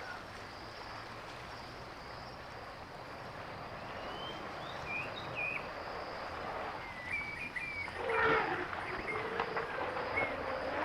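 Outdoor ambience with a steady hiss and scattered bird chirps, then a louder pitched animal call about eight seconds in.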